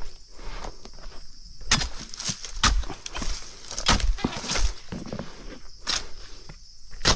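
Irregular crunching knocks and rustles among dry oil palm fronds, roughly one a second, over a steady high hiss.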